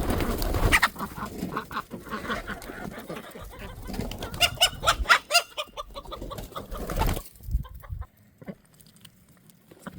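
Chickens clucking, a run of short calls that grows busiest around the middle and dies down about eight seconds in. A loud low rumbling noise comes first, in the opening second.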